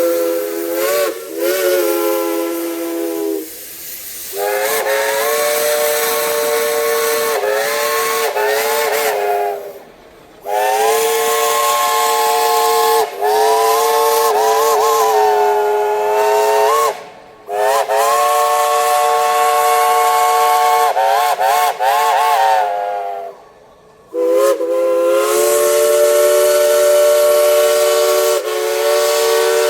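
Steam locomotive whistles blowing long chords of several notes at once, in repeated long blasts separated by brief breaks. A few blasts are broken into quick short toots near their ends. Steam hiss runs underneath.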